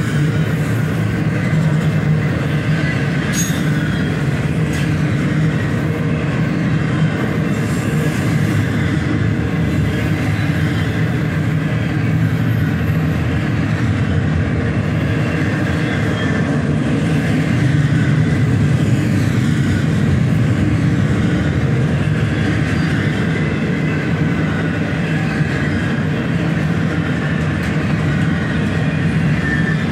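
Double-stack intermodal freight cars rolling slowly past at a level crossing, a steady rumble of steel wheels on the rails.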